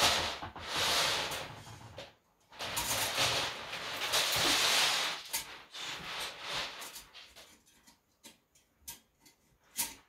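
Toilet auger's metal cable scraping as it is fed down into the toilet drain, in two long stretches, then scattered light clicks and taps of the cable in the bowl.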